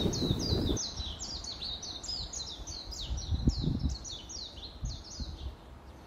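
A small songbird singing a long, rapid run of high notes, each slurred downward, several a second, fading toward the end. Low rustling underneath in the first second.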